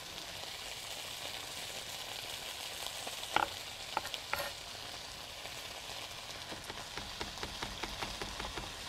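Potatoes frying in olive oil in a skillet: a steady sizzle. A couple of sharp knocks come a little over a third of the way in, and from about two-thirds in a chef's knife chops fresh rosemary on a cutting board in a run of quick, even chops.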